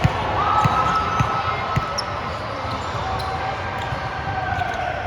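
A volleyball bouncing on a gym floor, four dull thuds about half a second apart in the first two seconds, over the general din of the hall.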